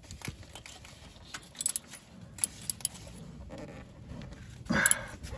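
A small cut-down ratchet and socket clinking and clicking in irregular bursts as the new coolant temperature sensor is threaded into the cylinder head and snugged down on its crush washer, with a louder metallic clatter near the end.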